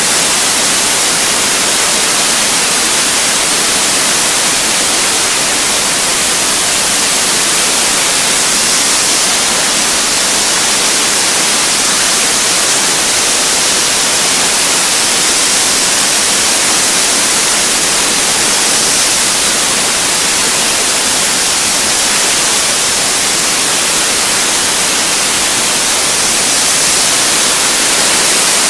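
Model jet turbine engine of a radio-control jet running steadily at high power: a loud, even rushing hiss with a very high whine. Near the end the whine begins to drop as the engine throttles back.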